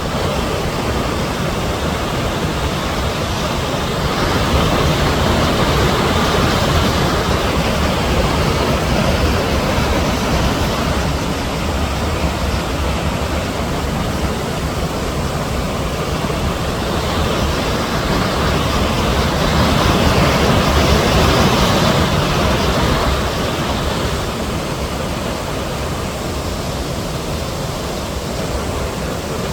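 Steady rush of falling water from the Naso no Shirataki waterfall, swelling louder twice.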